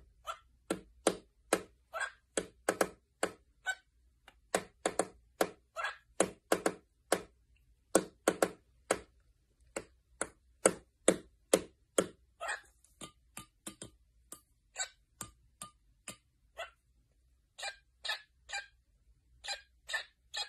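A long run of short, sharp clicks, about two a second and uneven, thinning out and getting softer in the last third.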